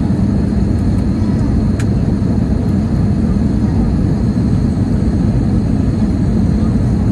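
Steady cabin noise of an Airbus A320neo on approach: airflow and its Pratt & Whitney geared turbofan engines make a low, even noise heard from a window seat over the wing.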